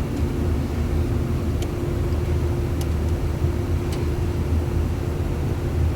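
Air-conditioning unit running: a steady low hum with one constant tone, and three faint ticks in the middle.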